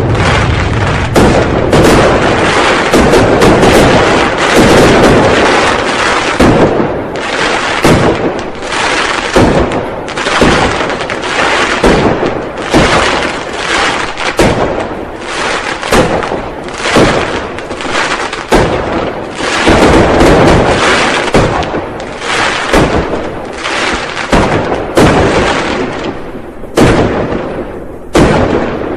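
Firecrackers and fireworks going off in a dense, continuous barrage: many sharp bangs, often overlapping, over a constant rumble of booms that never lets up.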